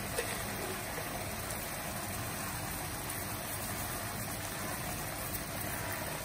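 Steady, even hiss of paneer slices frying gently in olive oil in a pan over a low flame.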